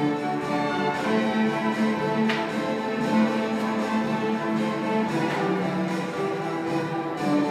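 Student string orchestra of violins and cellos playing held, sustained chords that change every second or two.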